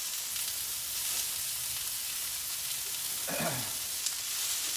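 Sliced onions and peppers sizzling on a hot Blackstone flat-top griddle: a steady frying hiss.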